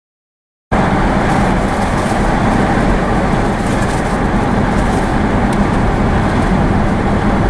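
Steady engine and tyre road noise inside a moving car's cabin, starting abruptly under a second in.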